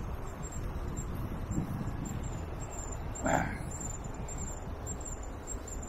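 Street ambience: a steady low rumble with a faint, thin high pulsing tone over it, and one short, louder call-like sound about halfway through.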